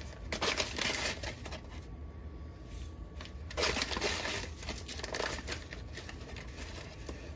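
Granulated sugar being scooped from its bag and poured into the mixing bowl: two rustling, pouring bursts, one near the start and one around the middle.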